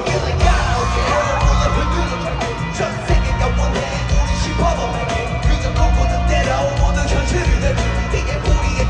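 Live pop music played loud over a concert sound system, with singing over a heavy bass beat.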